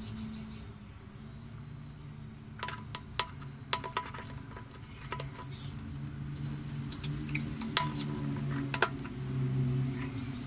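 Small metal clicks and scrapes from handling and prying apart a rusty kerosene-lamp burner with slip-joint pliers. A cluster of clicks comes about three seconds in, and two louder single clicks follow later.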